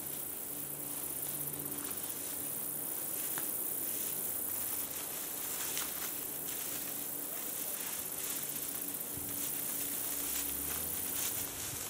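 Steady high-pitched buzz of insects in dry woodland, with footsteps crunching and rustling through dry grass and brush, coming more often in the second half as the walker draws closer.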